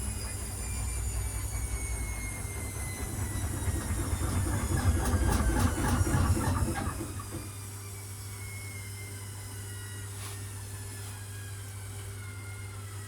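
Electrolux EW1057F washing machine winding down from its interim spin, with a slowly falling whine from the motor and drum. In the middle the unbalanced load makes heavy rattling and banging, which stops abruptly about seven seconds in, leaving a steady low hum under the falling whine.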